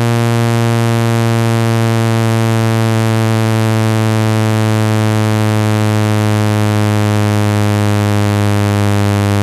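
A steady, loud, low electronic buzzing tone with many overtones, unchanging in pitch and loudness: a speaker-cleaning tone played to vibrate sand and dust out of a speaker.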